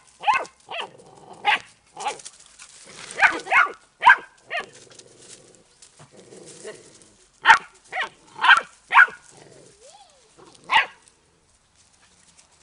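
Puppies yapping in play: short, high barks in two bursts of several each, separated by a few quieter seconds, with a brief whine near the end.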